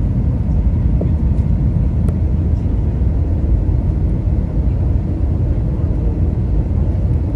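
Steady low rumble of an Airbus A320neo airliner, the even roar of engines and airflow heard inside the cabin.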